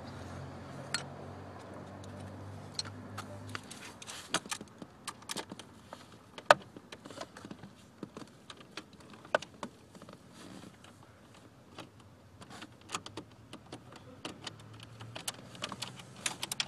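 Irregular small clicks, taps and light rattles of hand work on plastic dash trim with a screwdriver and screws, one sharper knock about six and a half seconds in. A faint low hum fades out in the first few seconds.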